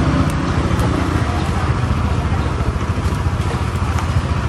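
Busy market street ambience: a steady low rumble of motorbike engines running close by, with indistinct voices.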